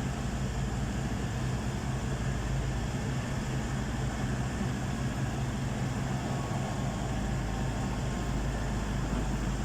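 Heavy diesel earthmoving machine's engine running at a steady speed, a low even drone with no change in pitch.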